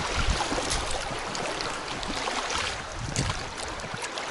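River current rushing and lapping against the inflatable hull of a fishing packraft as it drifts through choppy fast water, dying down towards the end as the water calms.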